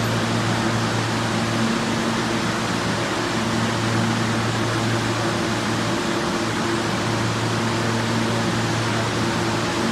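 R160A subway train standing at the platform, its air-conditioning and auxiliary equipment giving a steady low hum over a steady hiss.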